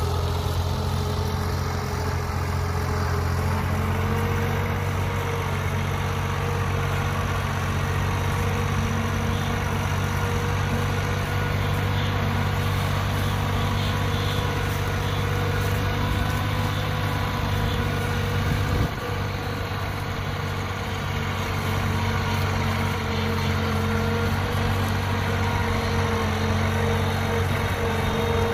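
Small diesel farm tractor engine running steadily under load as it pulls a trailer of rice sacks, with a brief dip in level about two-thirds of the way through.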